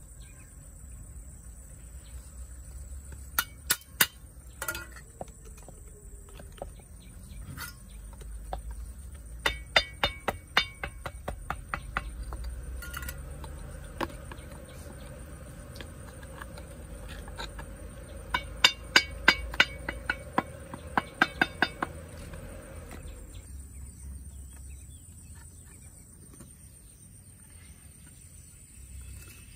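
Sharp knocks struck in quick runs of several, in a few separate bursts, over a steady high-pitched whine.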